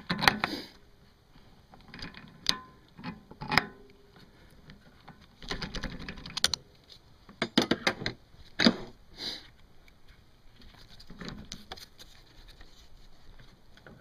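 Irregular clicks, knocks and scrapes of a socket extension and gloved hands working at a car's upper strut mount, with a busy run of clicks in the middle and quieter handling near the end.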